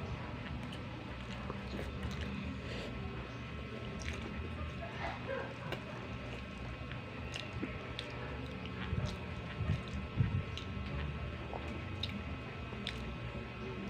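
A person chewing and eating chicken curry, with wet mouth sounds and scattered small clicks, and a few louder thumps about nine to ten seconds in.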